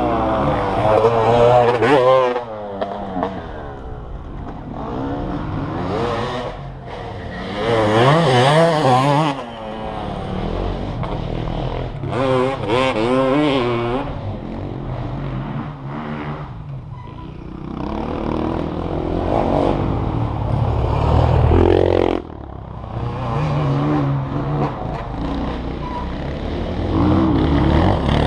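Motocross bikes riding the dirt track, several passes one after another, the engine note rising and falling as the riders work the throttle.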